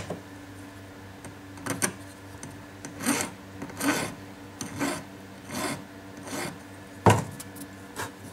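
Hand file rasping across the end of a rivet pin on a small brass plate, filing the pin flat before it is hammered over. There are about half a dozen slow strokes, each under a second apart. A sharp knock near the end is the loudest sound.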